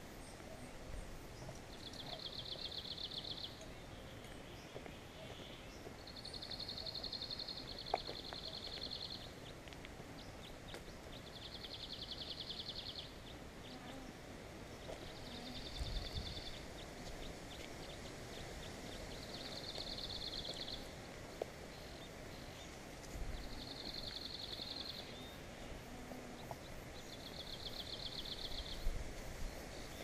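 An animal's high, buzzing trill, each about a second long and made of rapid even pulses, repeated roughly every four seconds over a faint outdoor background. There is a single sharp click about eight seconds in, and a few dull low thumps.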